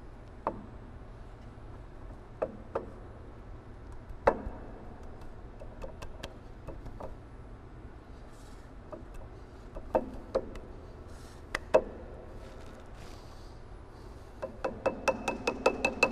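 Occasional clicks and knocks of the saw blade and steel flange being pushed by hand onto the saw's arbor shaft, over a steady low hum. Near the end a quick run of light rubber-mallet taps, about four or five a second, works the snug-fitting flange home.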